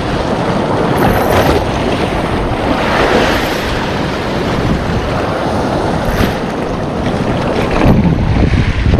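Sea waves washing on the shore in slow surges, with wind buffeting the microphone.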